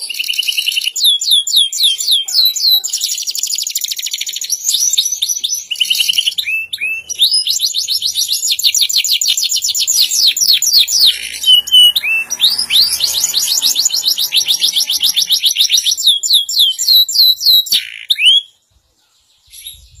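Canary singing a long, unbroken song of rapid trills: fast runs of repeated high, downward-sweeping notes, with the phrases changing as it goes. The song stops abruptly near the end.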